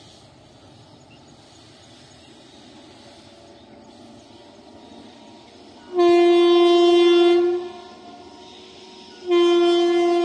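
Indian Railways locomotive air horn sounding two long single-note blasts, the first about six seconds in and the second near the end, each lasting about a second and a half. Before them there is only a faint steady hiss.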